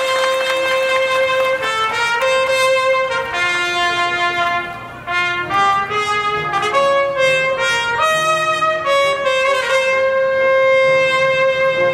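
Trumpet playing a melody note by note, with a short break about five seconds in and a long held note near the end.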